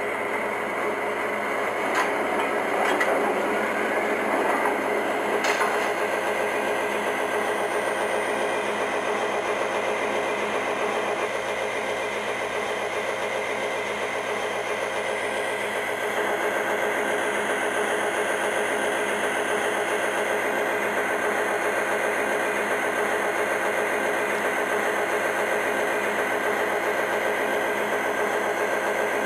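MTH model diesel locomotive's Proto-Sound system playing a steady diesel engine sound through its onboard speaker. A few short clicks come in the first few seconds, and the engine sound gets slightly louder about halfway through.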